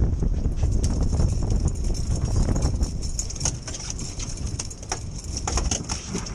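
Wind buffeting the microphone with a steady rumble, and a run of irregular sharp clicks and taps through the middle.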